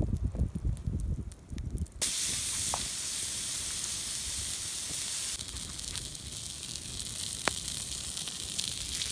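Raw ground-beef patty sizzling loudly on an oiled, fire-heated flat rock, the hiss starting abruptly about two seconds in. Before it come a few low thumps and rumbles.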